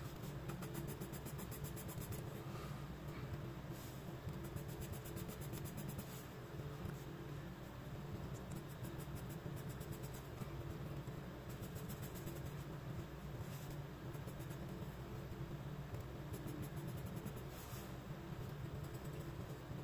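Graphite pencil scratching on sketchbook paper in quick hatching strokes, coming in short runs with pauses between, over a steady low hum.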